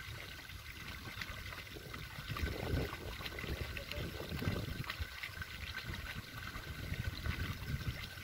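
Hooked fish splashing and thrashing in the water at the bank as it is played on a rod, over a steady low rumble.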